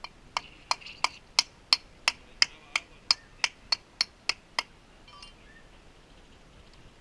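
A hand tool striking a conch shell again and again to knock it open: about fifteen sharp, ringing clinks at an even pace of about three a second, stopping about four and a half seconds in.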